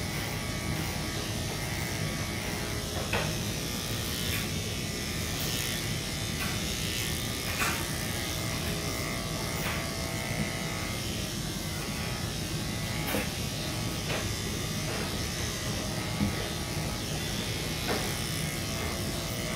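Electric dog-grooming clippers buzzing steadily, with faint short clicks every second or two.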